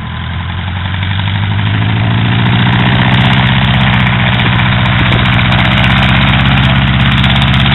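Engine and propeller of a small single-engine high-wing propeller plane taxiing on grass: a steady engine note that grows louder over the first few seconds, then holds.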